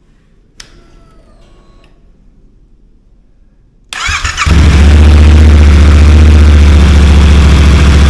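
A faint click and short whine, then the Yamaha MT-07's 689 cc parallel-twin engine, fitted to a Ténéré 700, is started for the first time after the swap: the starter turns it barely half a revolution before it fires and settles into a steady idle.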